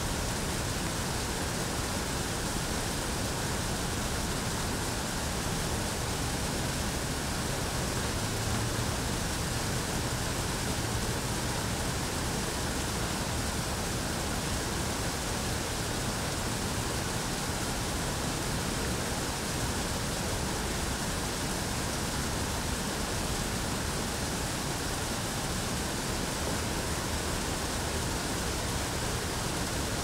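Steady rush of running water, an even hiss that holds without pause or change.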